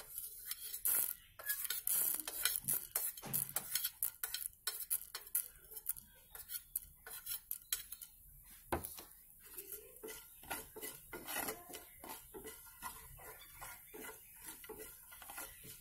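A wooden spatula scrapes and taps irregularly against a black frying pan while stirring chana dal and whole spices roasting on a low flame. Dry rice grains are poured into the pan.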